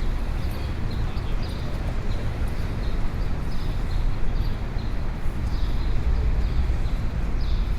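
City street ambience: a steady low rumble of traffic, with short high-pitched sounds dotted irregularly through it.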